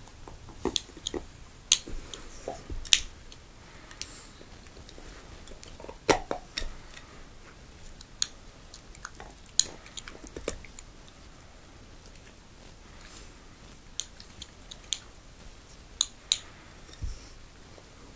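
A pit bull gnawing on a bone-shaped chew toy: irregular sharp clicks and crunches of teeth on the toy. Some come in quick clusters, others seconds apart.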